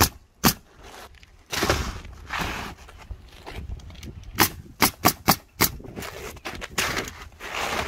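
Pneumatic coil roofing nailer firing nails through asphalt shingles: one sharp shot about half a second in, then a quick run of five in the middle. Rustling noises in between.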